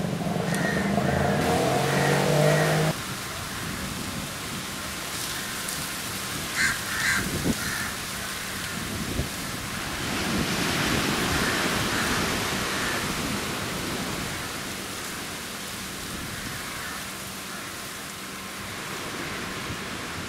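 Steady rushing noise of small waves washing onto a sandy shore, with wind on the microphone. A droning sound with several tones is heard during the first three seconds and cuts off suddenly.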